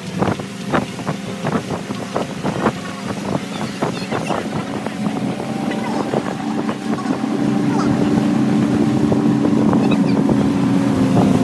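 Passenger boat running on the water: choppy splashing and knocks against the hull at first, then the engine's steady hum grows louder from about halfway and holds.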